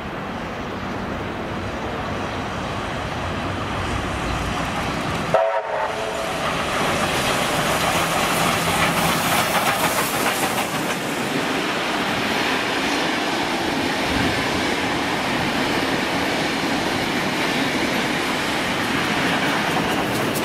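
Heritage steam locomotive and its wooden passenger carriages running past at close range. A short whistle note sounds about five seconds in, then the wheels clatter over the rail joints as the carriages roll by.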